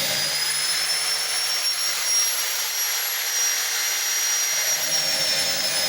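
Electric grinder used for sharpening a circular saw blade, running at high speed with a steady high whine and hiss. Its pitch creeps up slightly and then drops back near the end.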